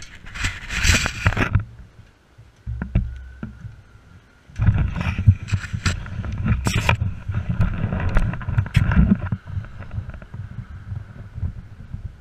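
1990 Honda CBR600F inline-four motorcycle engine running at low speed as the bike is turned around and ridden off. It gets louder from about four and a half seconds in, with clunks and rustling against the body-worn camera.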